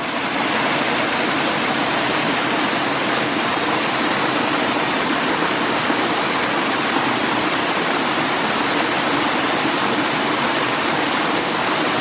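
Waterfall cascading down a rock face: a steady, unbroken rush of falling water.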